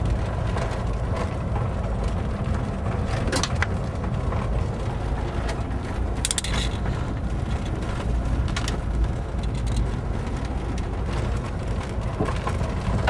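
Road and engine noise inside a moving car's cabin, a steady low rumble with a few short clicks and rattles scattered through it.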